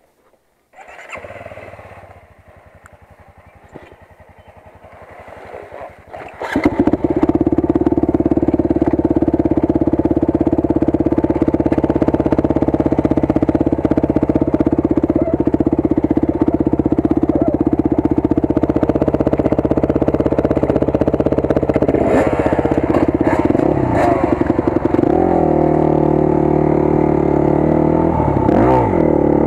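Dirt bike engine. A bike idles quietly at first, then about six seconds in an engine close to the microphone comes in loud and idles steadily. In the last several seconds the revs rise and fall repeatedly as the bike is ridden off.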